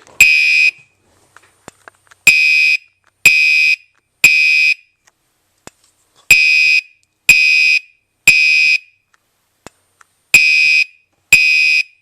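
Gentex GEC3-24WR (Commander 3) fire alarm horn/strobe sounding a high-pitched horn tone in the temporal code 3 pattern. It gives three half-second blasts about a second apart, then a pause of about one and a half seconds, and the pattern repeats. Faint clicks fall between the blasts.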